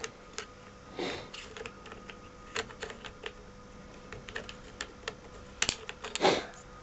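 Threaded metal camera step-up adapter rings being handled and screwed together by hand: irregular small clicks and taps, with a couple of louder scrapes about a second in and near the end.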